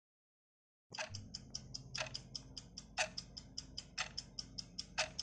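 Countdown-timer clock ticking sound effect that starts about a second in: quick ticks, about four or five a second, with a louder tick on each second, over a faint low hum.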